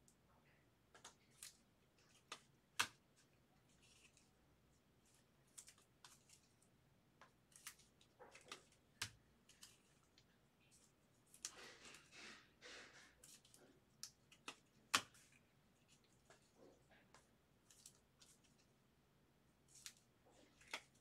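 Trading cards being handled on a desk: scattered faint clicks and taps, with a short rustle before the middle and two sharper clicks, one early and one in the middle.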